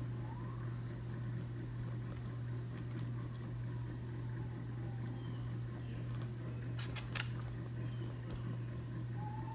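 A steady low hum fills the room throughout. A cat meows faintly right at the start and again near the end, and there are a couple of small clicks about seven seconds in.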